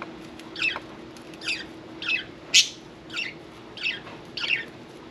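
Budgerigar chirping: a string of about seven short, downward-sweeping calls roughly every half second or so, the loudest about two and a half seconds in. A faint steady hum runs underneath.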